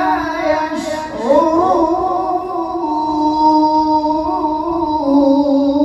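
A man's voice reciting the Qur'an in melodic tartil style into a microphone, drawing out long notes with a wavering ornamented pitch. A short break about a second in, then one long held note that steps down a little near the end.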